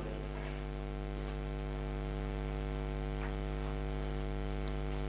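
Steady electrical mains hum from the microphone and amplifier chain: a low, unchanging buzz with a stack of even overtones.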